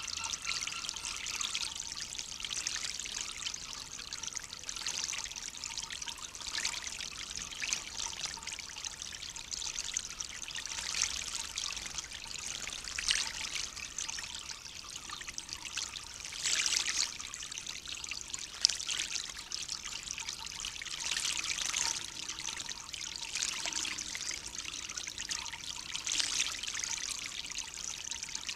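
Water splashing and trickling in a stone bird bath as a male bullfinch bathes, a steady trickle with brief louder splashes every few seconds.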